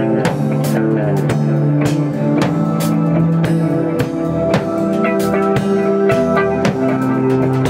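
Band playing an improvised instrumental rock jam: drum kit with drum and cymbal hits, electric guitar and long held bass notes.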